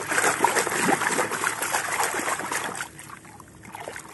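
Muddy water sloshing and splashing as a hand swishes a plastic toy truck around to rinse off the mud. The splashing eases off about three seconds in and picks up again at the end.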